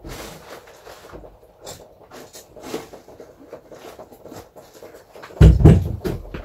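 Scattered faint clicks and knocks of hand work on the heating pipework and fittings, then one loud, low thump about five and a half seconds in.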